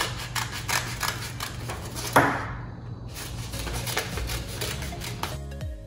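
Small children's scissors snipping through a folded sheet of construction paper in quick, repeated cuts, with the paper rustling. One louder snap comes about two seconds in. Background music starts near the end.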